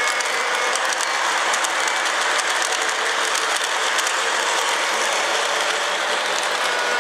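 Model steam train running on its track: a steady hissing rush with fast, faint clicking of the wheels over the rails.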